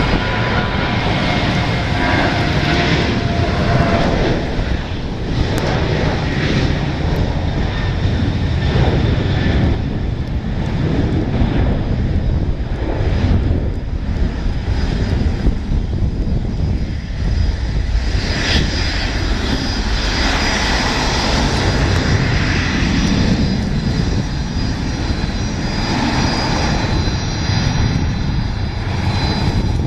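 Boeing 737-900ER's CFM56-7B turbofan engines at takeoff thrust, a loud steady jet roar that rumbles and fluctuates. About two-thirds of the way through, a high steady whine stands out above the roar.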